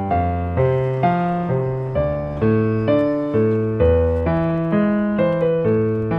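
Background piano music: a gentle, even run of notes and chords, about two a second, each ringing and fading before the next is struck.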